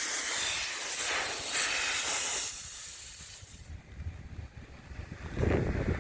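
Compressed air hissing steadily out of a punctured car tyre through the puncture hole as a repair plug is worked in. The hiss cuts off sharply about two-thirds of the way through, then a low rumble starts near the end.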